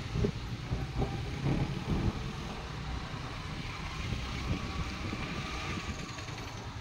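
A scooter riding along a rough road edge, its low engine and road rumble covered by wind noise on the microphone, with a few knocks from bumps in the first couple of seconds.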